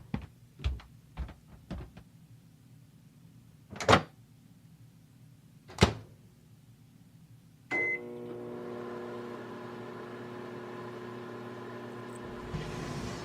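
Several light clicks and two louder knocks, then a short beep about eight seconds in as a microwave oven starts and runs with a steady hum.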